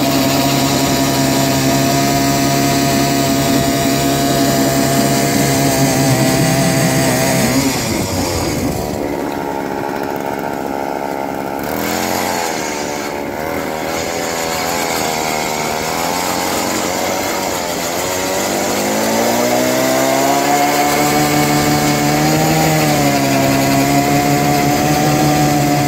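Ice auger driven by a power drill, boring through lake ice and slush. The motor runs with a steady whine whose pitch sags and wavers under changing load twice, about a third of the way in and again past the middle, then steadies.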